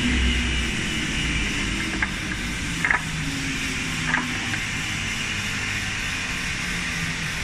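Four-sided moulder running with a steady machine hiss and hum, with a few short knocks about two, three and four seconds in.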